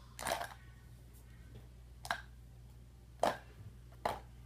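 Makeup containers clicking and knocking as they are put into a makeup bag: four short sharp sounds about a second apart.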